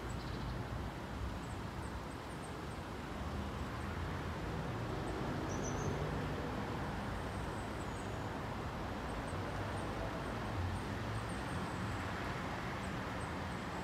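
Steady outdoor background of distant road traffic, with small birds giving short, high chirps now and then.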